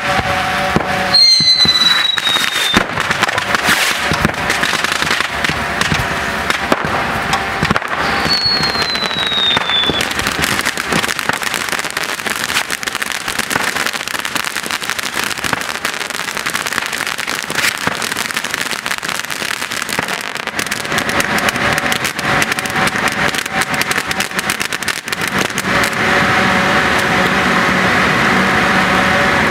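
Pyrotechnic effects on a car: dense crackling of bursting sparks over a steady hiss, with two falling whistles, one about a second in and another about eight seconds in. Near the end, spark fountains (gerbs) join in and the hiss grows louder and steadier.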